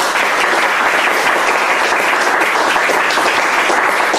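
Audience applauding, a dense, steady clapping that holds even throughout.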